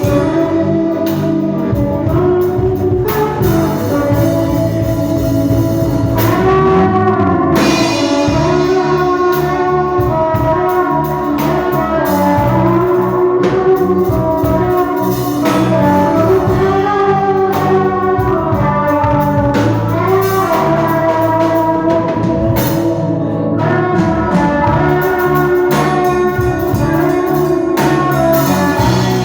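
A band playing instrumental music: a melodic lead line over a steady drum beat.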